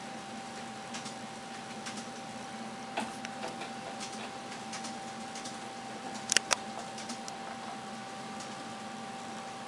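Scattered light clicks and scratches of pet rats moving about in a glass tank with shredded bedding, with two sharper clicks close together about six seconds in, over a steady faint hum.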